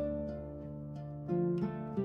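Soft background music: a gentle plucked-string melody over held low notes, with new notes plucked about a second and a half in.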